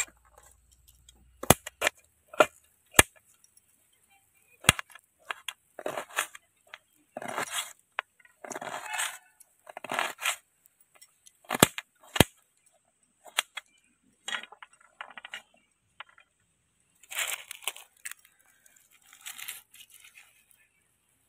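Raw onion being sliced by hand with a kitchen knife: crisp crunching and rustling of the onion layers in short spells, with sharp clicks scattered between them.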